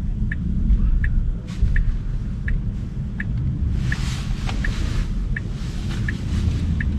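Tesla Model 3's turn-signal indicator ticking steadily, about once every 0.7 seconds, for a right turn, heard inside the cabin over the low rumble of city traffic. A louder rush of street noise comes about four seconds in.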